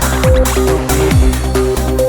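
Electronic dance music with a steady kick-drum beat about twice a second under held synth notes.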